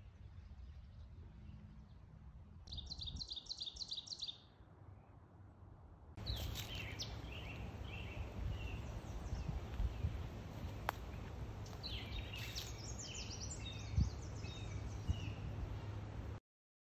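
Songbirds in woodland: a fast trill of high notes a few seconds in, then many overlapping chirps and short songs over a steady low rumble, cutting off suddenly near the end.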